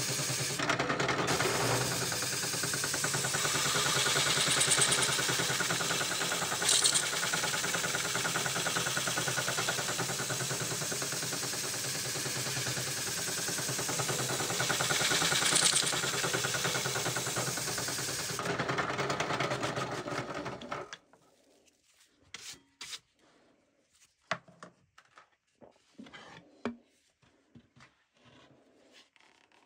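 Bench drill spinning a drum sander attachment against the edge of a wooden lyre frame: a steady rubbing hiss with a few brief louder scrapes. About 18 seconds in the sanding stops and the drill runs down, followed by a few light knocks and clicks.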